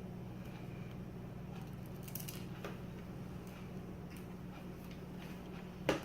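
Scattered faint clicks and light taps of tiny screws and a screwdriver being handled on a laptop's plastic screen frame, with one sharper click near the end, over a steady low hum.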